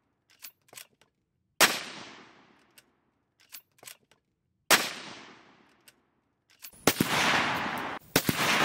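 Two .223 Remington rifle shots from a CZ 527 bolt-action carbine, about three seconds apart, each a sharp crack with a long trailing echo, with faint clicks of the bolt being worked between them. Near the end a steady rushing noise takes over.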